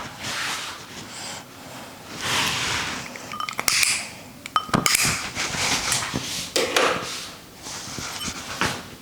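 Hands massaging an oiled head: swishing rubs through the hair and over the scalp, with a quick run of sharp clicks and slaps about four to five seconds in.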